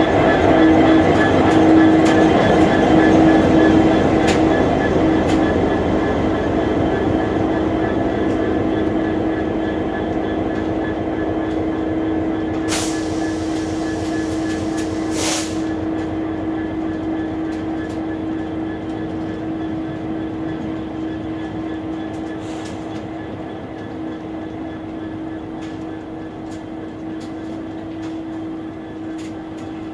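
Class 66 diesel freight locomotive's EMD two-stroke V12 engine pulling away, its steady hum slowly fading, as its tank wagons roll past with wheels clicking over the rail joints. Two short, sharp bursts of noise come about halfway through.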